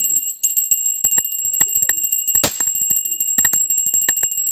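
Hand-held puja bell (ghanti) rung continuously during worship, a steady ringing with rapid clapper strikes throughout.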